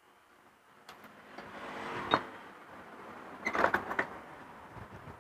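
Clutch housing and rear pulley of a Honda Vario 125 scooter's CVT, with the drive belt, being worked loose and pulled off the shaft. A rubbing noise builds up to a sharp metal clink about two seconds in, then a quick cluster of clinks and knocks follows about three and a half seconds in.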